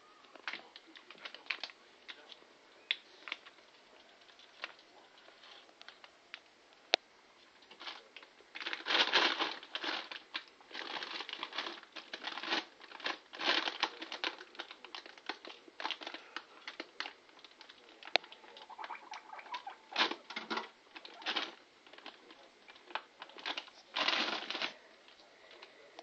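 Plastic bags crinkling and rustling in irregular bursts as guinea pigs clamber over and rummage through bagged food, with a few sharp clicks.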